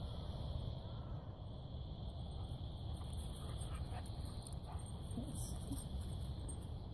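Dogs moving about close by, heard faintly over a steady low rumble on the microphone.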